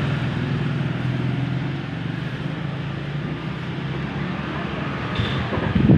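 Motor vehicle engine running in road traffic, its hum easing a little after about two seconds. A short high tone sounds about five seconds in, and a louder burst of noise comes at the very end.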